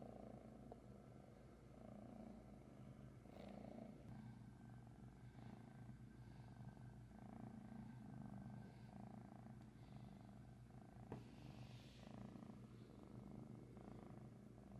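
Kitten purring faintly and steadily while being stroked, the purr swelling and fading with each breath a little faster than once a second. A single sharp click about eleven seconds in.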